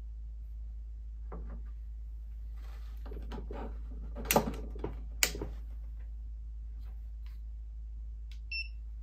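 Handling noises on a PCP air rifle and a digital trigger pull gauge, with two sharp clacks about four and five seconds in. Near the end comes a short electronic beep from the digital trigger pull gauge.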